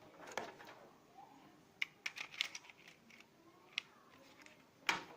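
Small plastic parts of a model train power car and its light assembly being handled: a scatter of light clicks and taps, several in quick succession about two seconds in.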